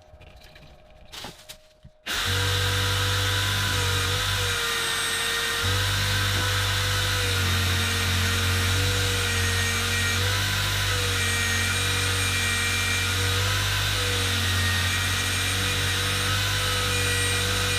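Electric power tool switched on about two seconds in and running steadily with a low hum and a wavering whine, after a few faint clicks of handling.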